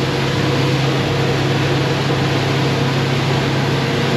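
Outboard motor running steadily at cruising speed, about 3,100 rpm with the boat planing at 20 mph, a constant low hum under a steady rush of wind and water.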